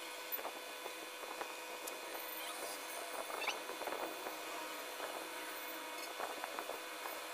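Graphite pencil scratching on paper in short, irregular strokes during portrait sketching, with a brief squeak about three and a half seconds in, over a steady background hum.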